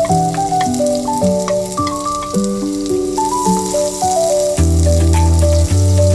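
Instrumental background music with a simple melody, a heavy bass line coming in about four and a half seconds in, over the steady sizzle of food frying in a pan.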